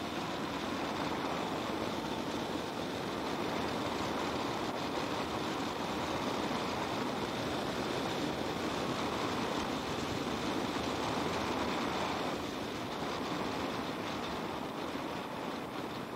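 Steady wind rush and road noise of a 2016 Kawasaki Concours 14 motorcycle riding along at speed, easing slightly near the end.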